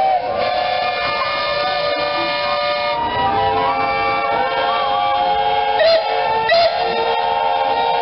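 Steam whistles of a line of traction engines and steam rollers sounding together in a sustained chorus of overlapping pitches. The chord shifts partway through, and two short, louder wavering whistle blasts rise above it about three-quarters of the way in.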